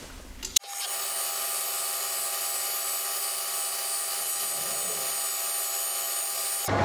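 Metal lathe taking a light skim cut on a steel hub, its running sound sped up eight times into a steady hum of several high tones. It starts abruptly about half a second in and cuts off just before the end.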